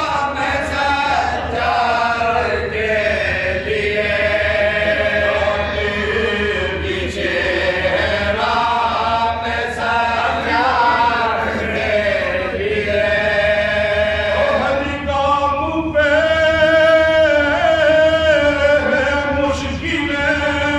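Men chanting a marsiya, a Shia elegy in Urdu: a lead reciter with supporting voices, unaccompanied, in long held melodic notes.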